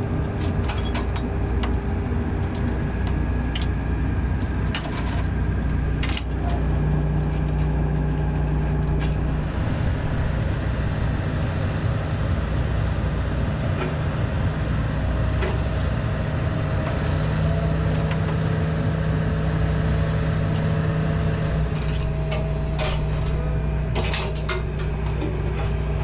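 Tracked excavator's diesel engine running steadily, its pitch shifting slightly now and then, with scattered light metallic clinks and rattles.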